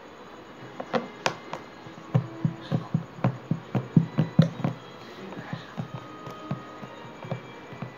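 Hands patting and pressing down on a badminton racket laid over slime on a table: a quick run of soft knocks, about three or four a second, loudest about four seconds in, then thinning out to a few lighter taps.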